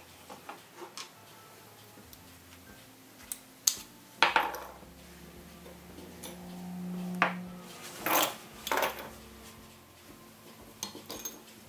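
Small soldered brass lamp parts clinking and clattering as gloved hands lift them off a soldering block and set them down on a wooden workbench: a handful of separate metal clinks. A faint low hum runs for a couple of seconds in the middle.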